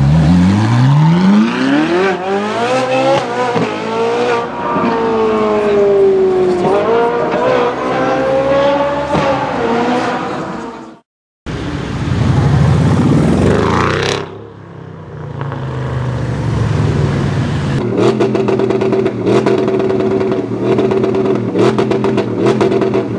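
Liberty Walk Ferrari 458's V8 revving hard as it pulls away, the pitch climbing steeply and then rising and dipping through gear changes. About 11 s in the sound cuts out and a different car's engine is heard: one rev rising and falling, then a steady engine note broken by frequent sharp cracks near the end.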